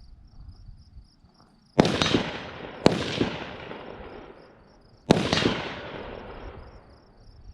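Three gunshots, the first two about a second apart and the third about two seconds later, each trailing off in a long echo.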